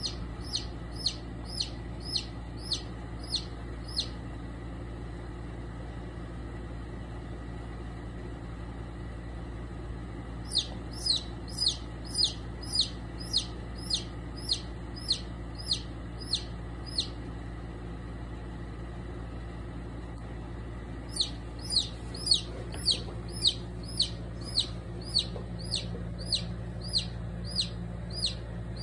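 Chick peeping, short high calls that each fall in pitch, about three a second, in three bouts with pauses between, while it is held in a rattlesnake's bite. A steady low hum runs underneath.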